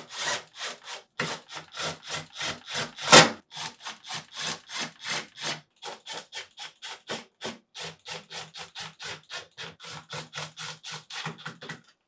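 Milwaukee Fuel cordless driver with a 3/8-inch nut driver bit running screws back into the freezer door's slide brackets. It makes a fast, even run of short strokes, about four a second, with one louder stroke about three seconds in.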